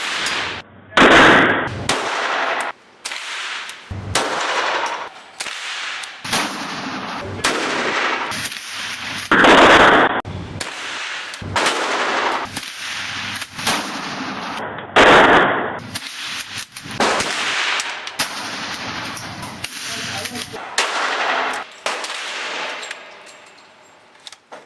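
A string of short gunfire clips cut together: single shots and quick strings of rapid fire, ringing out after each shot, with abrupt cuts between clips. The loudest bursts come about a second in, near the middle and about fifteen seconds in.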